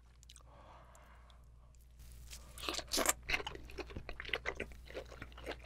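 Close-miked eating sounds: biting into and chewing a large spicy braised abalone with bean sprouts. After about two seconds of near quiet, a fast, uneven run of sharp clicks sets in and keeps going.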